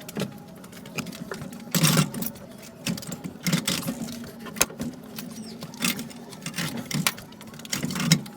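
Mechanical clattering: irregular knocks and rattles, several in a row, over a low steady hum.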